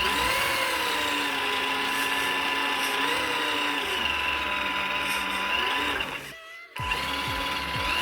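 Electric motor and gear drivetrain of a Tamiya TT01 RC car whining, its pitch rising and falling as the throttle is worked. There is a brief drop-out about six and a half seconds in.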